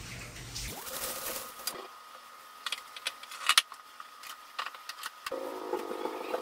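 Light clinks and knocks of objects being handled on a kitchen counter, several of them in the middle seconds. Under them is a steady humming tone that starts about a second in.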